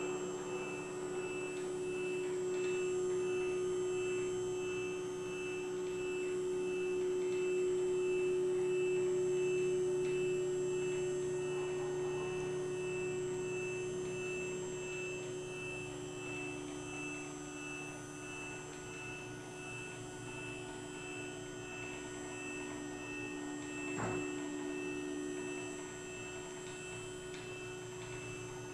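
Stepper motors of a CNC mill humming steadily as all three axes make a test move. A second, lower tone joins past the middle and drops out near the end, a faint high tone pulses evenly throughout, and there is a single click near the end.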